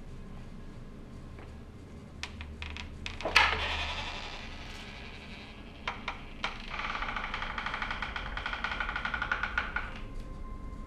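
A few light clicks and one sharp hit with a ringing tail, then a wooden door's latch clicks twice and its hinges creak in a slow pulsing creak for about three seconds as the door swings open.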